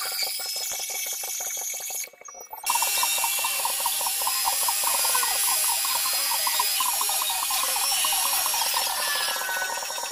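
Small metal lathe running while a turning tool cuts a metal workpiece, with a fast, even mechanical rattle. The sound drops away briefly about two seconds in, then resumes.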